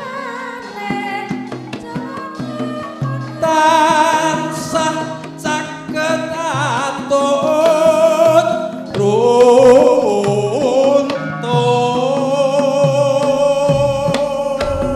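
Javanese gamelan music with a singer's wavering, vibrato-laden vocal line over ringing metallophone notes and low drum strokes.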